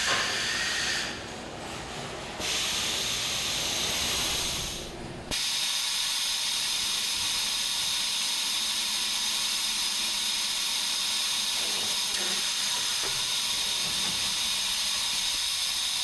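Steady hiss of factory machinery that changes abruptly several times in the first five seconds, then holds even.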